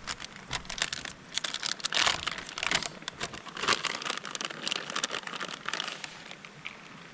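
Crinkling and rustling close to the microphone: a fast, uneven run of small crackles that lasts about six seconds and fades near the end.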